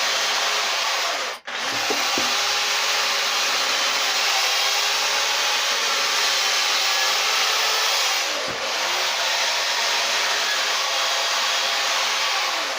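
Chainsaw running at high speed while carving into a wooden log, cutting out facial detail. The sound is steady, breaks off briefly about a second and a half in, and dips slightly later on.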